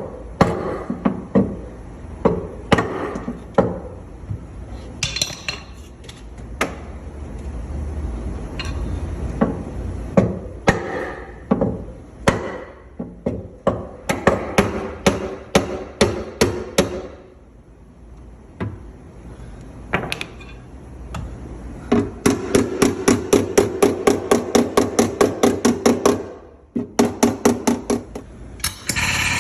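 Hammer blows on a car's dented quarter panel during panel pulling: scattered single strikes at first, then fast, even tapping at about four blows a second for several seconds near the end.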